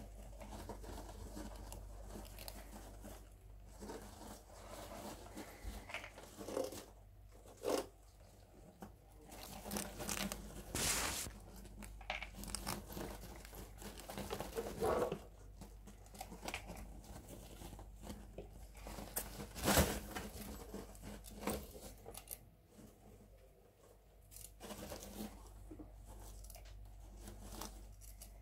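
Pet rats scrabbling in dry wood-shaving bedding: irregular rustling and crackling with a few sharper scrapes, the loudest about twenty seconds in.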